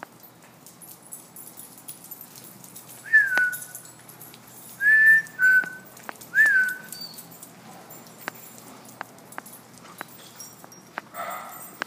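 A dog whining in four short high-pitched cries, each rising briefly and then holding, with a brief rougher cry near the end.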